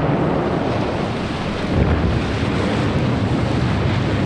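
Underwater depth-charge explosion: a continuous low rumble with rushing water and spray from the plume, swelling again about two seconds in.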